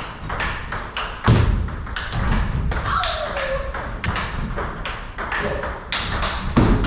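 Table tennis balls clicking off rubber-covered bats and bouncing on the tables in rallies, in quick irregular taps. A heavy thump comes about a second in, and a short falling squeak near the middle.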